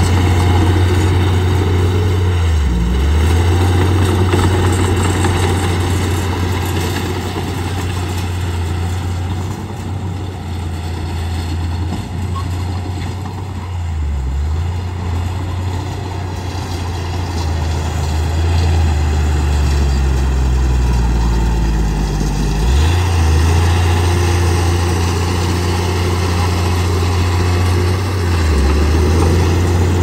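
A bulldozer's diesel engine running at work with a loud, low drone. The pitch dips briefly a few times, and past the middle it sags slowly for a few seconds before picking back up suddenly.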